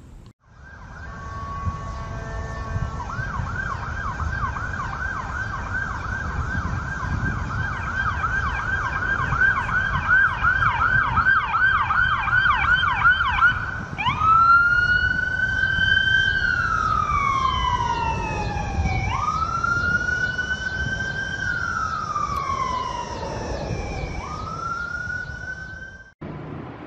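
Ambulance siren: a few short steady tones, then a fast yelp of rapid up-and-down sweeps, switching about halfway through to a slow wail that rises quickly and falls slowly, about every two and a half seconds, over a low rumble of traffic. It cuts off suddenly near the end.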